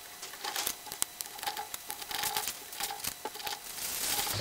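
Light, scattered clicks and ticks of steel studs being handled and threaded by hand into the top of a Weber triple-barrel carburetor body.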